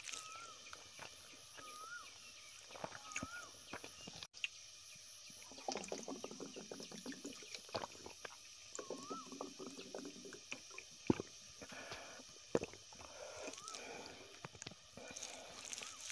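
Close-miked eating sounds: fingers mixing rice on a banana leaf and chewing, soft wet squishes and clicks, the sharpest a little after the middle. A short rising-and-falling chirp, likely a bird, repeats now and then in the background, and twice there is a brief run of rapid pulsing.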